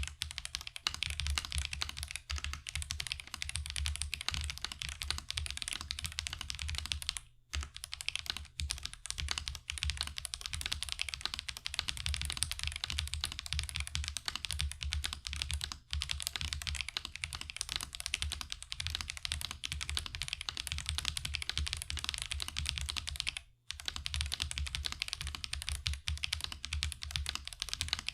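Steady typing on a stock Marvo KG972W gasket-mount mechanical keyboard with tactile switches and PBT keycaps: a dense run of keystrokes with two brief pauses, about 7 seconds in and about 23 seconds in. The keystrokes carry a high-pitched ticking, which the owner puts down to the tactile switches rather than the board.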